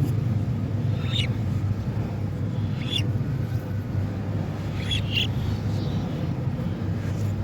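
Budgerigars giving three short chirps, a second or two apart, over a steady low rumble that is the loudest sound throughout.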